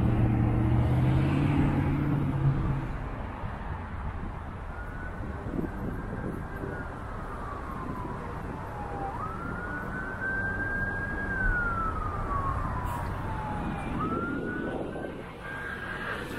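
An emergency vehicle's siren wailing in slow rising-and-falling cycles, about one every four to five seconds, over street traffic. For the first couple of seconds a loud low engine hum close by covers it.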